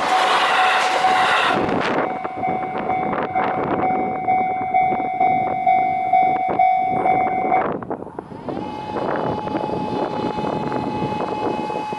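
JR East E233 series electric train passing over a level crossing: a loud rush of its passage for the first couple of seconds, then clicking wheels as it goes. Under it, the crossing's warning alarm rings a steady, pulsing tone about two times a second, which stops about seven and a half seconds in. A second, slightly higher steady alarm tone starts about a second later.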